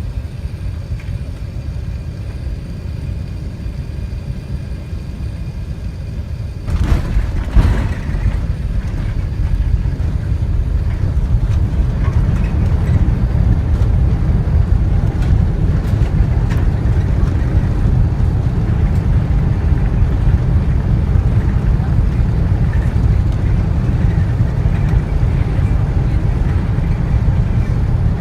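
Airbus A380 heard from inside the passenger cabin: a steady rumble of engine and airflow, then about seven seconds in a sudden jolt with a couple of knocks as the main wheels touch down. A heavier, louder rumble of the landing roll follows and builds over the next several seconds.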